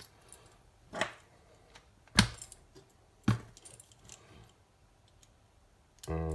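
Sharp metallic clinks, three of them about a second apart, as small metal parts are handled on a workbench.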